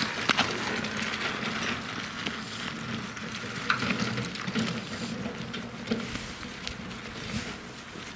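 Gritty crackle of an empty wheelbarrow rolling over a rough, sandy asphalt road, mixed with walking footsteps. A dense patter of small clicks and scrapes carries on throughout, with a few sharper knocks.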